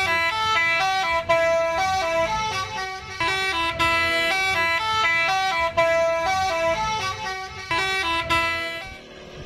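Telolet basuri multi-tone horn on an odong-odong playing a tune of quick stepping notes that repeats, then stops abruptly near the end.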